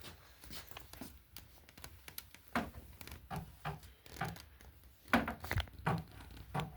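Irregular small knocks, clicks and rubbing of hands handling equipment, with louder knocks about two and a half seconds in and again around five seconds in.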